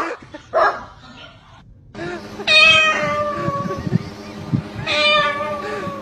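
Two long, drawn-out meows, about two and a half seconds apart, in the second half.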